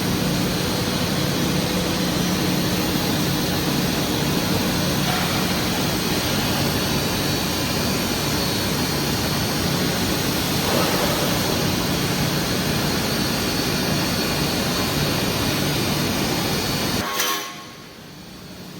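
Steady running noise of a stainless steel tube mill, a dense rushing din with a low hum under it. About seventeen seconds in it drops suddenly to a much quieter level.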